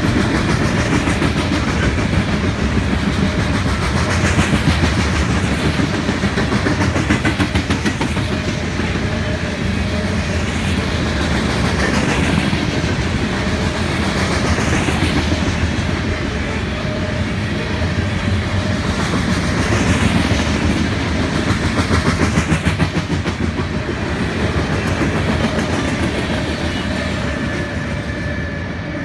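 Loaded coal hopper cars of a freight train rolling past, steel wheels clicking over the rail joints over a steady rumble. The sound eases slightly near the end as the last cars go by.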